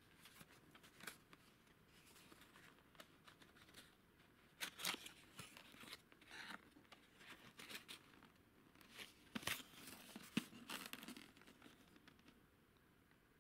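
Faint scraping and rustling of a small cardboard box being handled as its end flap is pried open and folded back, with a few sharper scuffs of card on card about five and ten seconds in.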